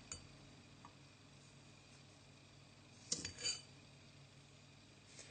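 A spoon clinking against a small jar while sugar is spooned over chopped onion: a sharp clink about three seconds in, then a short scraping rustle, with faint clicks at the start and near the end.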